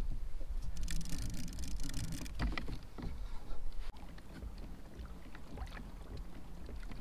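Water lapping against a plastic kayak hull, with wind rumbling on the microphone and scattered small knocks. There is a sharp click just before four seconds in, and after it the sound is quieter.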